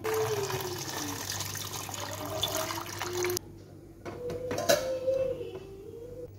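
Tap water running into a stainless-steel bowl of eggs, filling it for boiling; the flow stops abruptly after about three and a half seconds. Then come a couple of sharp clinks.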